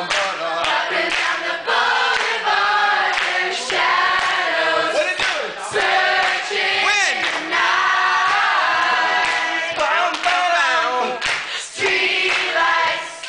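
A large group of young people singing a song together, with hand clapping.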